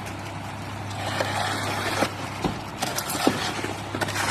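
Ready-mix concrete truck engine running steadily, with a few scattered knocks and scraping about halfway through.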